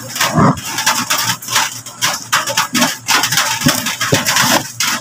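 Crinkling and rustling of a plastic-wrapped parcel being handled, an irregular run of crackles.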